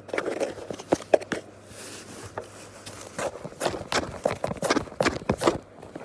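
Irregular light taps and knocks, a few a second, over a low steady hum.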